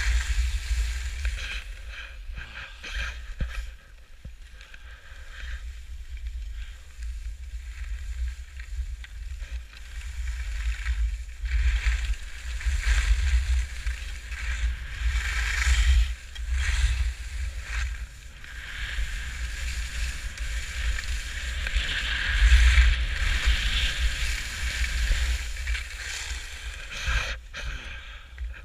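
Skis carving and scraping over packed snow, a hiss that swells and fades with the turns and is loudest a little past the middle, over a steady rumble of wind buffeting the GoPro's microphone.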